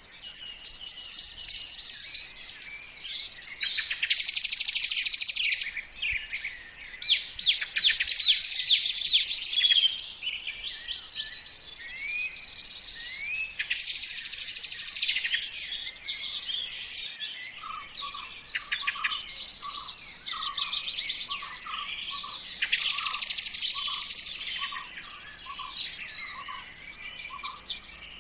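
Several songbirds singing together: overlapping chirps, trills and quick sweeping whistles, with a few louder trilled songs. In the second half, a lower single note repeats about twice a second beneath them.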